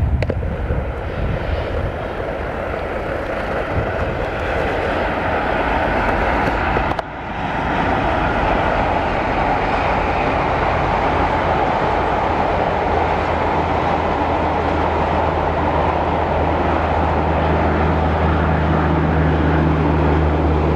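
WDG-3A ALCO diesel locomotive hauling an express train at speed, with loud, steady running noise. There is a brief break about seven seconds in. From about fifteen seconds a steady low engine drone builds.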